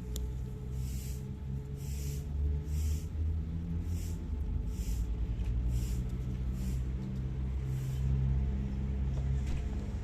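Cat purring close up: a steady low rumble with a soft breathy hiss about once a second.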